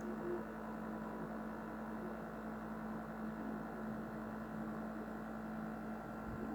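Steady hum with a soft hiss from a pot of water heating on an electric stove element at full, before the boil: small bubbles are forming on the bottom and the first steam is rising.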